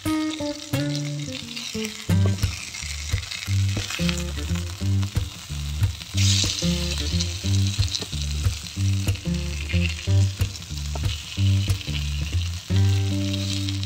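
Masala-coated mackerel pieces sizzling in oil on an iron tawa, with a spatula turning them. The sizzle swells sharply about six seconds in as pieces are flipped onto the hot pan.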